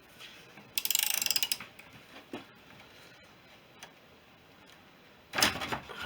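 Workshop hand-tool sounds on a motorcycle engine: a rapid run of metal clicks, like a ratchet being spun, lasting under a second, then a few light taps and a heavier clunk near the end.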